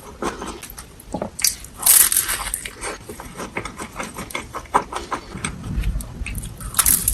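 Crunchy bites and chewing of a crispy fried cone, with loud crackling crunches about two seconds in and again near the end.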